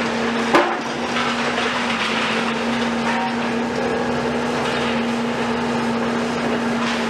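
Demolition excavators, a Cat 374F UHD high-reach and a Volvo EC250, working a concrete building: a steady engine hum under the crunching and clatter of breaking concrete and falling rubble, with one sharp bang about half a second in.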